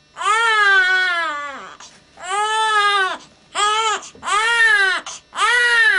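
Infant crying hard in a string of loud wails. The first wail is the longest and drops in pitch at its end, and shorter wails follow about once a second.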